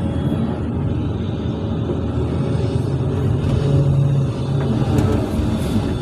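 SANY hydraulic excavator's diesel engine running steadily under load, a loud low rumble that swells briefly about two-thirds of the way through as the machine works.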